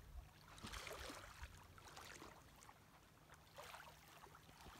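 Near silence: faint lapping of small waves against the rocks at the lake's edge.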